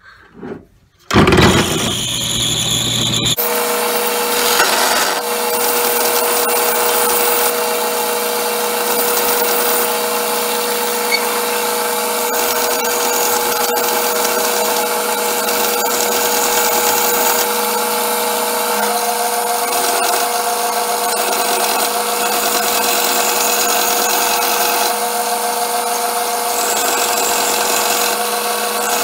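Benchtop belt-and-disc sander starting up about a second in, then running steadily with a constant motor hum while a wooden workpiece is pressed against the sanding belt, the abrasive rasping on the wood.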